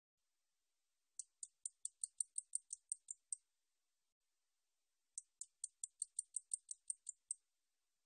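날베짱이 katydid stridulating: two series of about a dozen sharp, high-pitched ticks, about five or six a second, each series lasting about two seconds with a pause of about two seconds between them.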